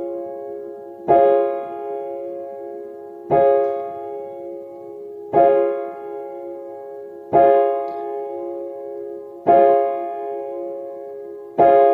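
Clock striking twelve: six evenly spaced hour strikes about two seconds apart, each a ringing chord of several tones that dies away slowly into the next.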